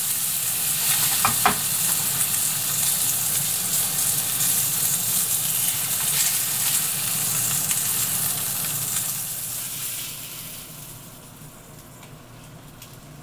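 Pacific saury frying in sesame oil in a frying pan, a steady sizzle, with two light clicks about a second in. The sizzle dies down over the last few seconds.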